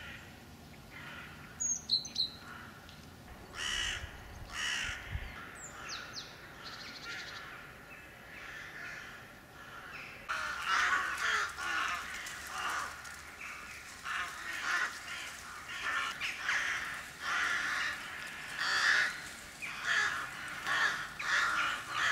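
Crows cawing: a few scattered calls at first, then a dense run of repeated caws from about halfway through.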